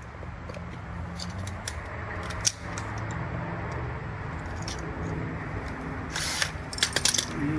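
Power drill running steadily with its motor humming as the bit works into the material. Sharp scratchy, clicking bursts come in about six seconds in.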